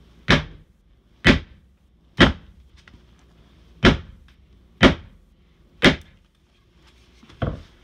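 Small sledgehammer striking the end of a timber beam to drive it sideways into place, six hard blows about a second apart with a short pause after the third, then a lighter knock near the end.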